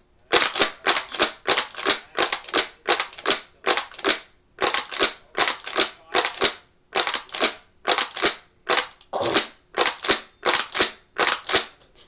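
Quick, heavy breaths in and out of a plastic water bottle held to the mouth: a sharp, rushing puff about two to three times a second, keeping an even rhythm.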